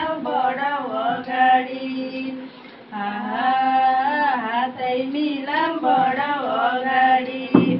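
Women's voices singing together, a cappella-style with long held notes, read from a sheet; the song breaks off abruptly near the end.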